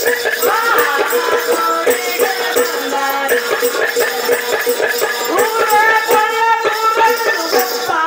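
Live folk singing with a steady one-string drone and fast, even shaken-rattle percussion, sung through microphones.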